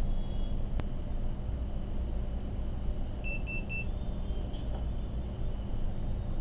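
Three short, evenly spaced electronic beeps at one pitch about three seconds in, over a steady low hum, with a single click just under a second in.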